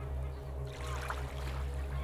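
Ambient soundscape: a steady, low drone with short bird calls, like geese honking, scattered over it.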